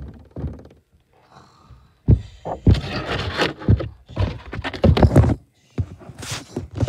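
Handling noise: the phone is bumped and rubbed close to its microphone, with a knock at the start and then several seconds of loud scraping and rustling bursts.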